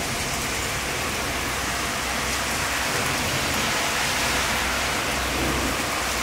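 Heavy rain pouring down onto a street and rooftops, a steady dense hiss.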